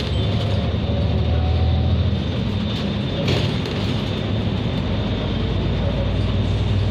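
Interior of a bus running at road speed: a steady engine and drivetrain drone under tyre and road noise, heard inside the passenger cabin. A couple of brief rattles come about three seconds in.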